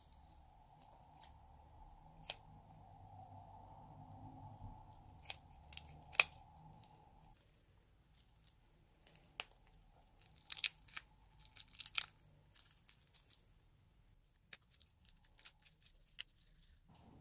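Green latex snake balloon being handled and squeezed by hand: scattered sharp snips and crinkles of rubber, the loudest about six seconds in and a cluster around ten to twelve seconds in, over a faint steady hum that stops about seven seconds in.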